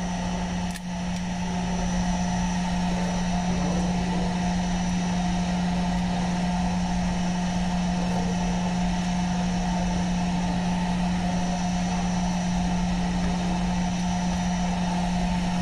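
Steady mechanical drone of a running fan motor, a low hum with a fainter higher whine, unchanging throughout. A single light click about a second in.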